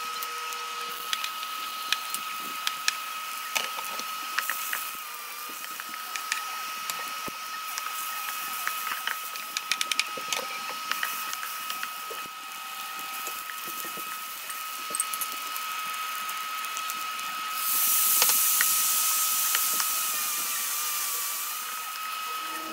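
Wooden spatula clicking and scraping against a frying pan while minced beef and peppers are stir-fried, over a steady high-pitched whine from an induction cooktop. A loud burst of sizzling comes near the end.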